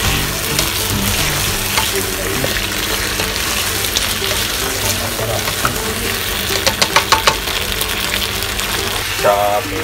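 Chicken, green peppers, carrots and potatoes frying in a wok for a chicken curry, a steady sizzle as they are stirred. About two-thirds of the way in, a quick run of about five sharp knocks of the spatula against the wok.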